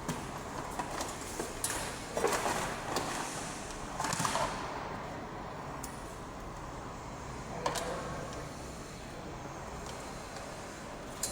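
Scattered knocks and short scraping rustles over steady background noise, busiest in the first few seconds, with a single sharp knock a little past the middle.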